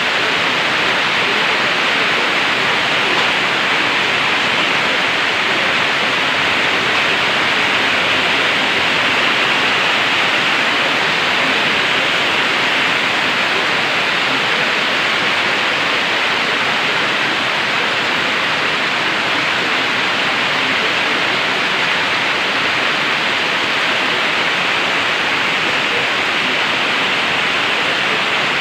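Heavy, steady tropical-storm rain falling, an even hiss with no let-up or separate drops standing out.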